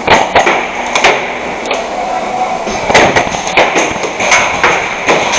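Gas blowback airsoft guns firing: a dozen or so sharp shots in irregular clusters, a few close together, over steady background noise.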